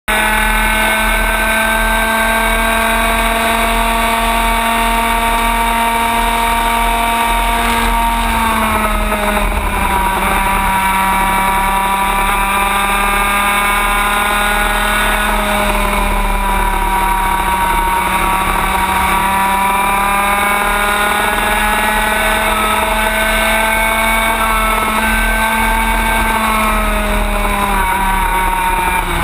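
Racing kart engine at high revs through a lap, heard from onboard over low wind and road rumble. Its pitch dips briefly about a third of the way in and again near the end, then climbs back.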